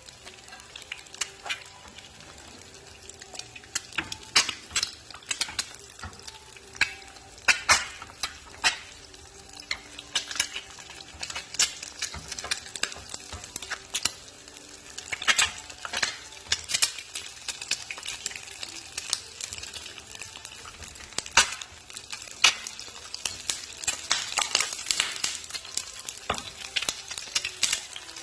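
Eggs frying crisp in hot oil: a steady sizzle with irregular sharp pops and crackles, growing denser near the end.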